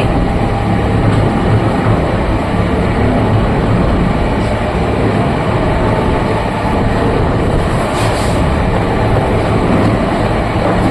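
Oil expeller screw press running steadily under load: a loud, continuous mechanical rumble with a low, steady hum.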